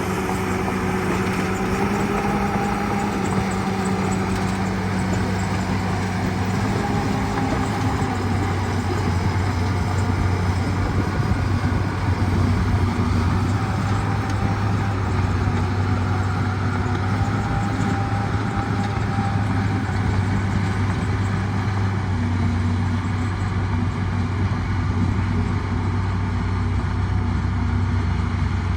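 Bulldozer's diesel engine running steadily, its note wavering slightly as it works.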